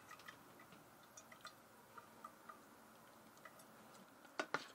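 Faint, scattered drips of stew liquid draining through a collapsible silicone colander into a saucepan. Near the end a serving spoon stirring the meat in the colander gives a few sharper clicks.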